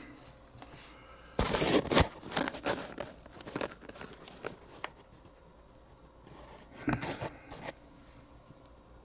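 Crinkling and rustling, like a plastic bag or wrapping being handled, mixed with sharp clicks and taps of small parts. It comes in a loud burst about a second and a half in, with scattered taps after it and a second cluster about seven seconds in.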